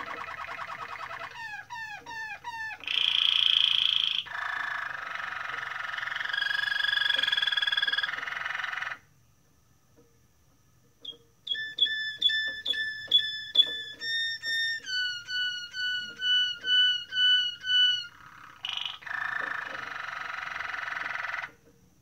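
Waterslager (Malinois) canary singing. Long rolling trills and quick falling glides are followed by a pause of about two seconds in the middle. Then comes a string of evenly spaced two-toned notes, two or three a second, that step down in pitch, and rolling trills return near the end.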